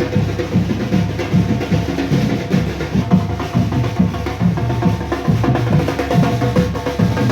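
Parade marching band playing: drums and percussion beat out a fast, steady rhythm under a few held instrument notes.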